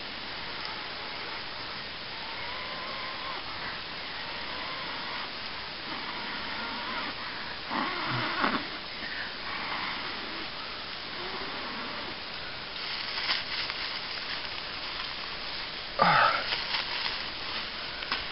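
Dry grass tinder rustling as a hand handles it, over a steady hiss, with two short louder bursts about eight seconds in and near the end.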